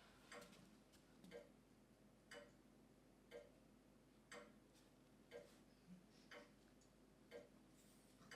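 Faint clock ticking steadily, about one tick a second.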